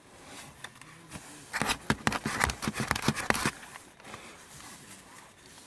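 Close rustling and handling noise of fabric and gear, a dense run of crackly rustles for about two seconds in the middle, then quieter shuffling.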